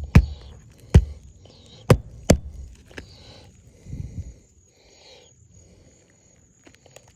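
Four sharp knocks in the first two and a half seconds, then only faint scattered handling sounds.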